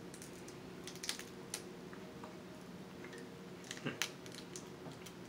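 Snow crab leg shells cracking and snapping as they are broken apart by hand: a scatter of small sharp clicks, bunched about a second in and again near four seconds.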